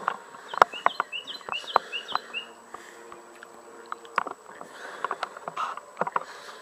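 A songbird singing a quick run of short, falling chirps for about two seconds, among scattered clicks and knocks from a camera being handled and set down.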